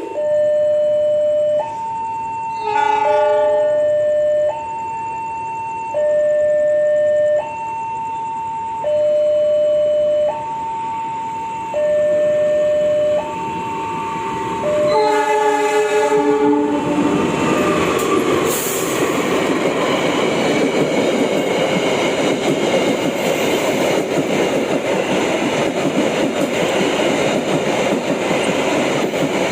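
A level crossing's electronic alarm alternates between a low and a higher tone about every one and a half seconds. A train horn gives a short blast about three seconds in and a longer one around fifteen seconds, sounded because the crossing barrier has failed to close. From about seventeen seconds the train runs past with a loud, steady rumble.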